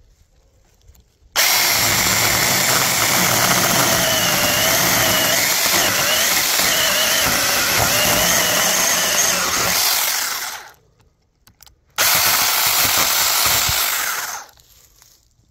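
Battery-powered 6-inch mini chainsaw cutting into a log, its electric motor and chain running under load with a wavering pitch. It starts suddenly, runs for about nine seconds, stops, then runs again for a couple of seconds more.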